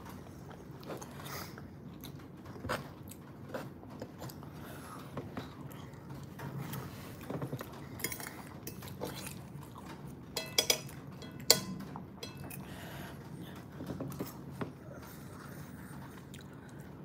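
A person chewing a forkful of creamy chicken and noodles, with soft mouth sounds. A few sharp clicks a little past halfway are the metal fork touching the plate.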